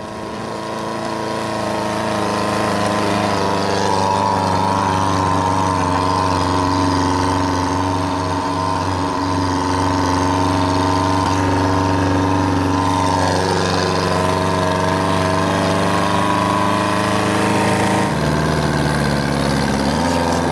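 An engine running at a steady speed, loud and close. It swells over the first couple of seconds, and its note drops slightly near the end.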